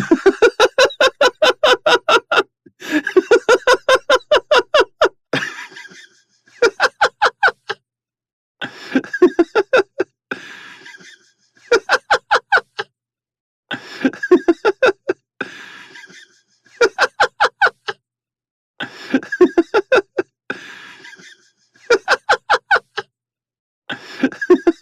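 A man laughing in repeated bouts of rapid 'ha-ha-ha' pulses, about five or six a second. Each bout lasts a second or two and ends in a short breathy tail before the next begins.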